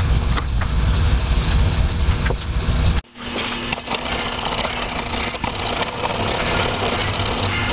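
A power tool's motor running steadily, which drops out abruptly about three seconds in and then starts up again.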